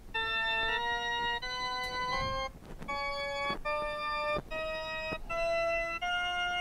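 Synthesized Shepard-tone notes from the circular keyboard of the Sound Uncovered iPad app, played one after another at roughly one note every 0.7 s, about nine in all. Each note is several tones mixed together, so the run seems to keep going up without end: an auditory illusion.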